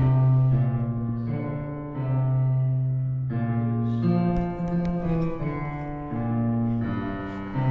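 Slow piano-led instrumental music, with held notes that change about once a second.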